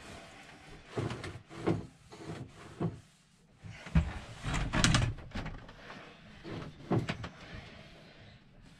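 A cloth wiping and rubbing over the top of a plastic holding tank, with irregular knocks and bumps against the surrounding locker. The louder thumps cluster about four to five seconds in, with another near the seven-second mark.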